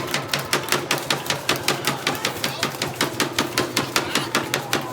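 Fast, even rhythmic banging, about four to five sharp knocks a second, kept up steadily, with a faint steady tone beneath it: celebration noise in the rink right after a goal.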